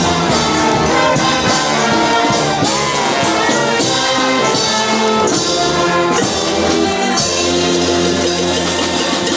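Music with brass instruments and a steady tambourine beat.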